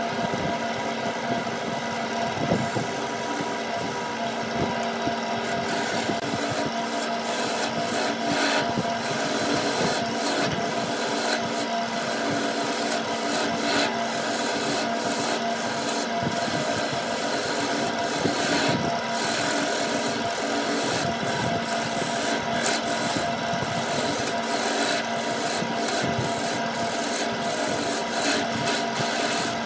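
Wood lathe running with a steady hum while a hand-held turning chisel cuts the spinning wood. The cut is a continuous scraping with small irregular surges.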